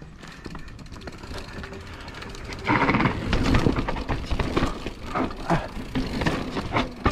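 Mountain bike clattering down a rough trail: a rapid run of knocks and rattles from tyres, chain and frame over rolling noise, much louder from about three seconds in.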